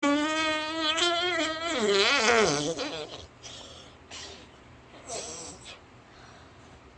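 A person's voice making a long, drawn-out, wavering vocal noise for about three seconds, sliding down in pitch at the end. Only faint, scattered sounds follow.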